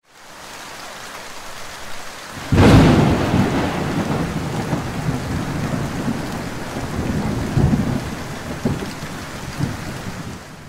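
Thunderstorm sound effect: steady rain fading in, a loud thunderclap about two and a half seconds in, then a low rumble of thunder over the rain with a few further swells, fading out at the end.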